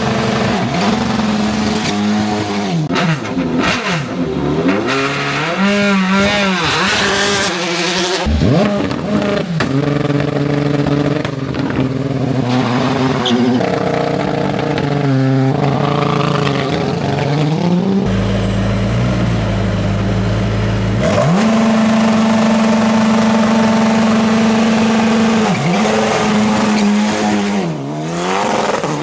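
Hillclimb race car engine revving hard at the start, the pitch repeatedly dropping and climbing with throttle blips. It is held steady on the launch-control limiter for a few seconds, then jumps up and holds a high steady note as the car launches, with a brief dip near the end.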